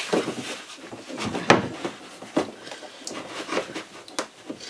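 Irregular knocks, clicks and rubbing of a plastic water tank and a corrugated plastic filler hose being handled as the hose is pushed onto the tank's fitting. The sharpest knock comes about a second and a half in.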